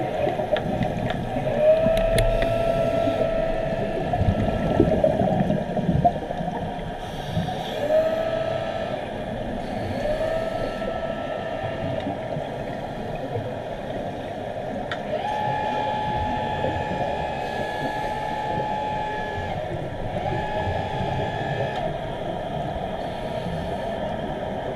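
Sound picked up by a camera underwater in a diving pool: a steady rushing water noise, knocks during the first few seconds, and several held whistling tones, the longest about four seconds, a little past the middle.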